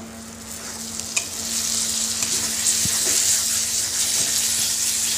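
Ground onion-tomato masala paste sizzling in hot oil in a black kadai as it is stirred with a spatula; the sizzle grows louder from about a second and a half in, with one sharp tap near the start. The masala has been fried until the oil separates and rises to the top.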